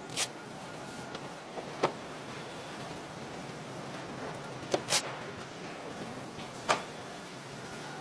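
Chrome Škoda car badges being fitted by hand: a handful of sharp clicks and snaps as the lettering is set into a plastic jig and the emblem is pressed into place, over a steady hiss. The loudest clicks come about two seconds in and near the end.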